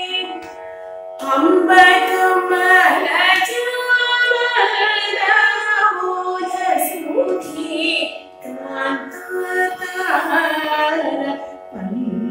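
A woman singing Carnatic music, her voice sliding and oscillating between notes in long ornamented phrases over a steady drone. The singing comes in about a second in.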